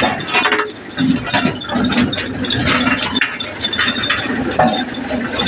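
Busy mechanical clatter of road construction work: repeated metallic clinks and knocks with short squeaks over a steady din.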